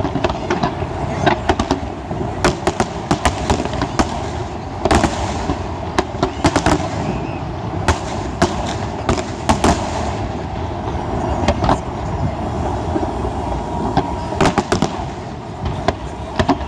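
Aerial fireworks display: a dense run of sharp bangs and crackling from bursting shells, often several a second, over a continuous noisy background.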